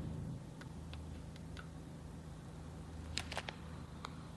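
Low steady electrical hum with a few faint clicks and taps, the sharpest a quick cluster about three seconds in.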